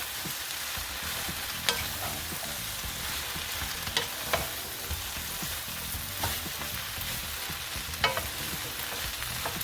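Shredded cabbage frying in a pan in a little oil, sizzling steadily as it is stirred, with a few short clicks of the utensil against the pan. The cabbage is releasing its juices, so it is partly steaming as it fries.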